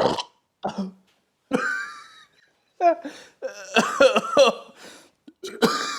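A person coughing and laughing in short bursts, with breathy gasps between.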